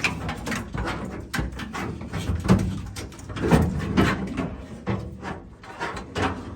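An old wiring harness being handled and sorted: rustling of wires with irregular clicks and knocks of its plastic connectors.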